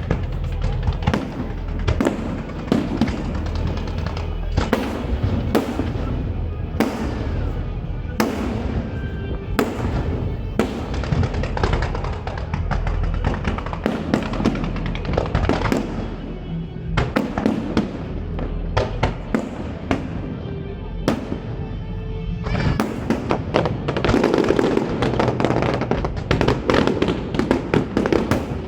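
Aerial fireworks bursting one after another with sharp cracks and bangs, the bursts coming thicker near the end, over music.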